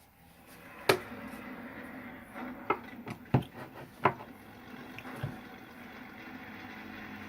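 Sharp clicks and knocks from handling the BB rifle's pistol grip and its small parts during disassembly, about five in all, over a steady low hiss.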